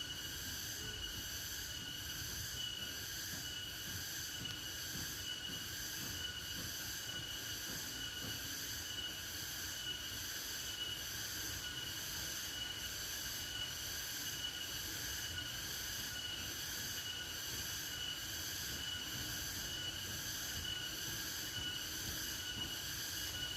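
Steady rain with a high, evenly pulsing insect chorus over it, about one and a half pulses a second, and a steady high whine.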